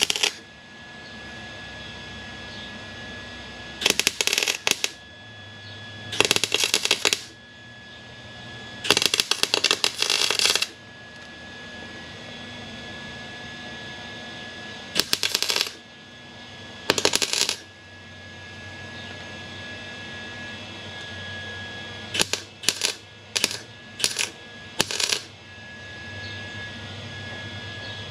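Wire-feed (MIG) welder laying short bursts of welds to fill pinholes and tears in a rusted fender well, each pull of the trigger giving a crackling, sizzling arc. There are about a dozen stop-start bursts, from a fraction of a second to under two seconds each, with several quick ones near the end and a faint steady high whine in the pauses.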